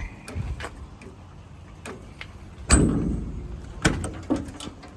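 Metal truck service-body compartment door being opened: a few small latch clicks, a loud clunk about three seconds in with a brief metallic ring, then another sharp click.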